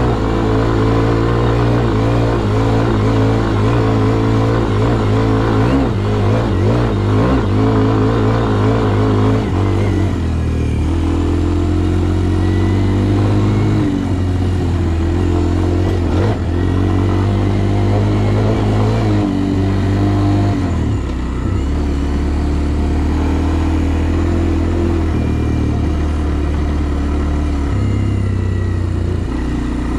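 Kawasaki KLX230R dirt bike's air-cooled single-cylinder four-stroke engine running under the rider's throttle, its pitch rising and falling. The note is busier and changes quickly for about the first ten seconds, then settles lower and steadier, with sudden steps up and down in pitch.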